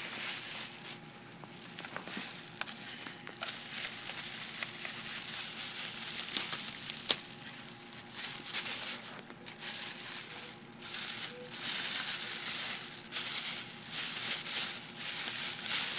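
Thin plastic shopping bags crumpled and handled, crinkling and rustling in irregular bursts, with one sharp click about seven seconds in.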